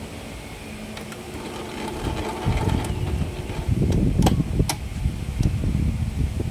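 Norio Yamazaki electric sewing machine running steadily as it stitches a buttonhole in zigzag stitch. The hum grows louder about two and a half seconds in, with two sharp clicks shortly after.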